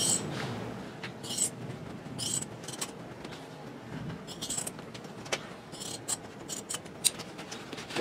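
Scissors snipping in a series of short, irregular cuts through the sewn strip of a car headliner to expose the bow rod, with cloth rustling between the cuts.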